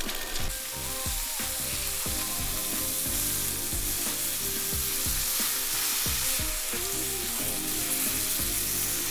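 Beef steaks (domestic Japanese wagyu) frying with a steady sizzle on a small griddle plate over a canister gas stove.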